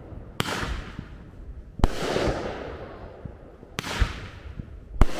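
Medium consumer firework cake firing: four loud bangs about every one and a half to two seconds, each trailing off over about a second.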